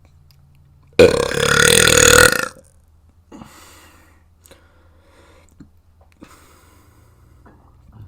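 A person burping: one long, loud burp starting about a second in and lasting about a second and a half.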